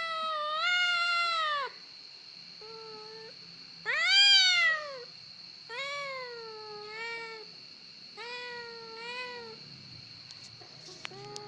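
Young cat meowing over and over, about eight meows of varying length, some in quick pairs, the loudest about four seconds in. A faint steady high-pitched whine sits underneath.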